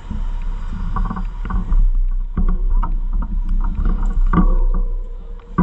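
Wind rumbling on the microphone of a bicycle ride, with scattered rattles and knocks throughout.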